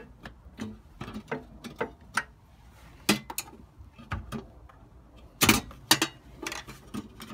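Scattered clicks and clanks of a hand tool working the bolts of a van's metal battery tray, with two louder knocks about five and a half and six seconds in.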